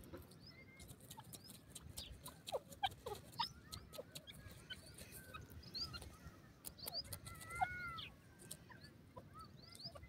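Grey francolin giving faint, scattered soft chirps and squeaky notes, with one longer arched note a little past the middle, over small clicks and a low rumble.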